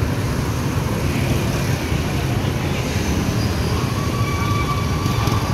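Many motorcycle engines and a passing car running in slow, packed street traffic, a steady low rumble. A faint thin tone sounds in the second half.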